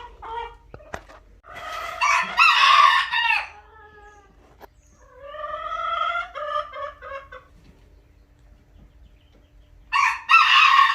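A rooster crowing three times: a loud crow about two seconds in, a softer crow with a falling end midway, and another loud crow near the end.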